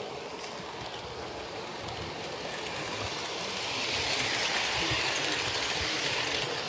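HO-scale model train running on its track: a steady rolling whir of wheels and motor that swells louder about halfway through and stays up until near the end.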